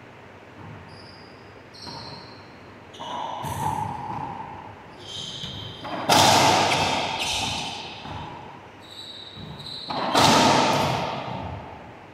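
Racquetball rally: two loud sharp cracks of the ball struck by a racquet and hitting the walls, about four seconds apart, each ringing on in the enclosed court's echo. Short high squeaks of sneakers on the hardwood floor come between them.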